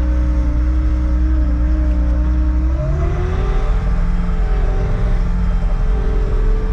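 Bobcat S70 skid steer's diesel engine running, throttled up about three seconds in, its pitch rising and then holding higher.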